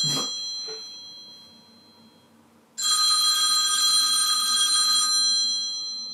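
Telephone ringing: a ring fades out over the first two seconds, then a new ring starts suddenly about three seconds in, holds for a couple of seconds and fades away.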